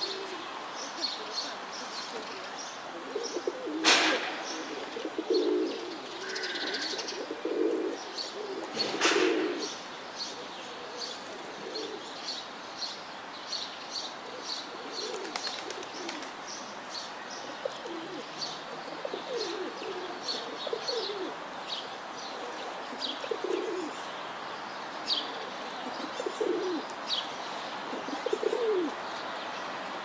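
Feral rock pigeons cooing again and again in low calls, many of them falling in pitch, over steady high chirping of small birds. Two sharp claps stand out, about four and nine seconds in.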